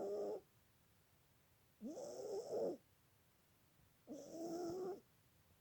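A sleeping cat snoring: a pitched, hissy snore on each breath, the tail of one right at the start and then two full snores about two seconds apart. The owner tags the cat as having breathing problems.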